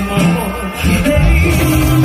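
Live reggae band playing with a singer, over a heavy bass line that comes in stronger about a second in.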